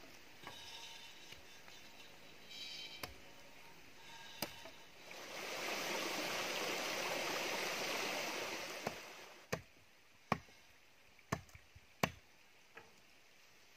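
Water running out of a pipe and trickling into mud for a few seconds, then several sharp separate knocks of bamboo poles being handled and set down.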